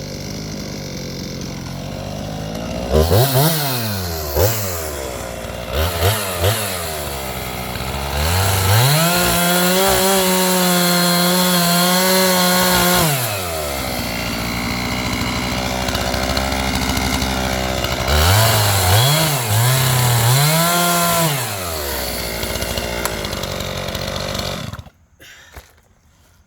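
Skil chainsaw revving in a few short blips, then held at full throttle for several seconds twice while it bores through the trunk's heartwood in a plunge cut, dropping back between the cuts. It cuts off near the end.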